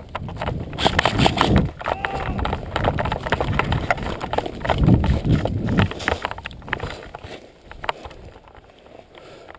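Footsteps crunching through dry leaves and forest undergrowth at a quick pace, with rustling of clothing and kit. Loud for the first six seconds or so, then quieter.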